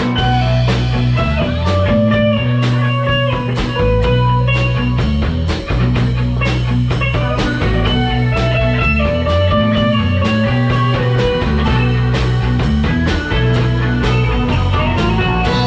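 Blues-rock band playing an instrumental passage: a guitar melody over a bass line and a steady drum beat.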